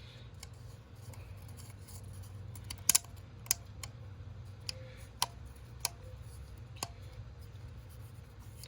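About six sharp, irregularly spaced clicks and taps of an oil filter and its housing parts being handled, the first the loudest, over a steady low hum.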